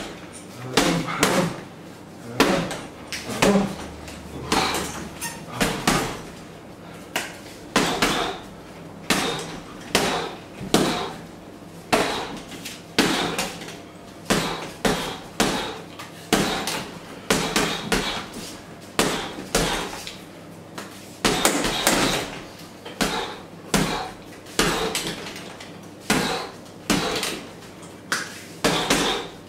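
Boxing gloves punching a hanging heavy bag: repeated sharp thuds in quick combinations, about one to three a second, with short pauses between the flurries.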